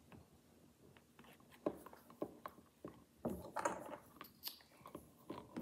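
Light clicks, taps and rustles of small doll accessories being handled and put into a doll's handbag, busier in the second half.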